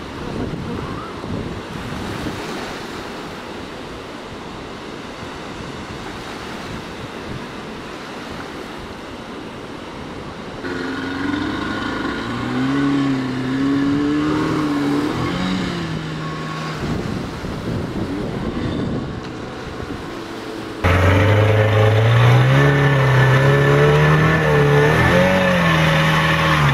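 Surf and wind. From about eleven seconds in, a small boat's outboard motor runs with a wavering pitch. About two-thirds of the way through it jumps to much louder and close up, as heard aboard the speeding inflatable, its pitch rising as the throttle opens.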